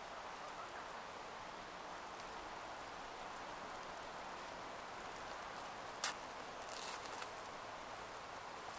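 Steady hiss of outdoor ambient noise. About six seconds in there is a single sharp click, followed by about a second of rustling.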